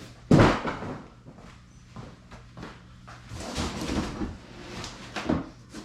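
Handling of skid plate boxes and parts: a loud thud about a third of a second in, then rustling and scraping, and another sharper knock near the end.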